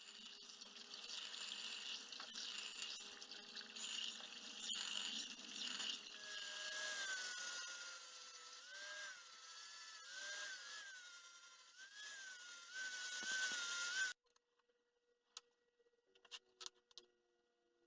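Steady abrasive scraping of a tool working steel, with a wavering high-pitched squeal that joins about six seconds in. It cuts off abruptly near the end, leaving near silence with a few faint clicks.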